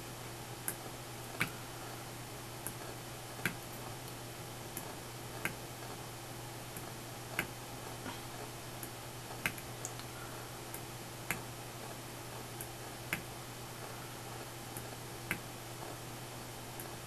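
Small tactile push button on a circuit board clicking as it is pressed over and over, about once a second with a louder click every two seconds or so. A faint, steady low hum runs underneath.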